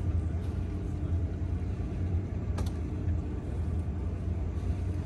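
Yacht's engine running steadily with a low rumble, under load as it pushes two yachts tied alongside.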